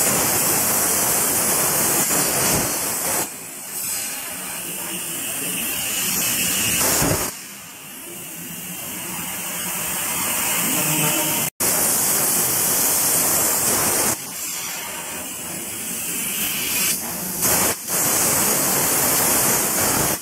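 100-amp CNC plasma cutter's torch cutting sheet metal: a loud, harsh hiss of the arc and air jet that drops to a quieter hiss several times and comes back as it moves from one cut to the next.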